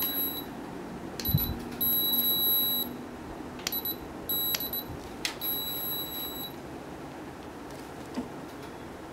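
High electronic beeps from a Yongnuo YN-560 speedlite, its ready signal, with the flash test-fired from the wireless trigger in between. There are a few short beeps and two about a second long, with sharp clicks near the middle and a low knock of handling.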